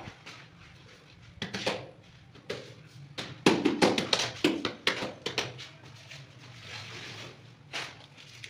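Hands slapping and tapping a large wall tile to bed it into its mortar: a few single knocks in the first seconds, then a quick run of sharp taps from about three and a half seconds in, over a steady low hum.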